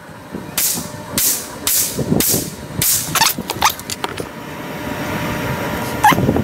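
Ruger PC Carbine 9mm rifle firing a quick string of about five shots, roughly half a second apart. A steady rushing noise follows and grows louder over the last couple of seconds.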